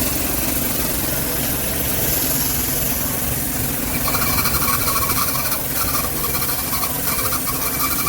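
Electric air compressor running: a loud, steady motor hum with hiss that switches on abruptly. About halfway through, a pulsing higher tone joins in.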